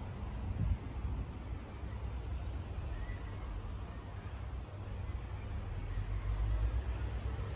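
Wind buffeting the microphone, a low uneven rumble that grows stronger near the end, with faint bird chirps over it.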